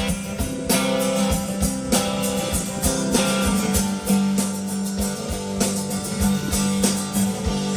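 Live band playing the instrumental close of a rock song: guitars strummed over a steady beat.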